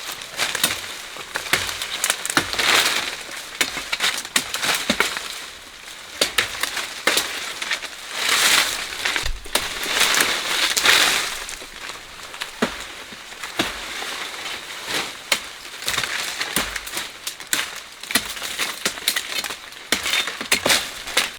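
Leaves and dry vegetation rustling and crackling in irregular swells, with many sharp snaps and clicks, as plants are handled and cut.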